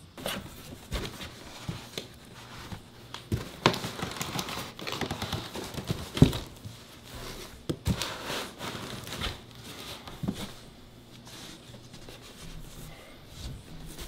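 Irregular rustling and crinkling with many light knocks and scrapes, busiest in the first half: a cat shuffling over a quilted blanket and into a cardboard box.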